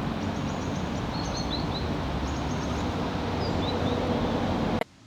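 Outdoor ambience: a steady rushing noise with small birds giving short, high chirps several times. It cuts off abruptly near the end.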